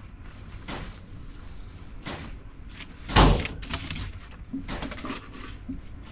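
Scattered knocks and clicks of handling, with one louder thump about three seconds in.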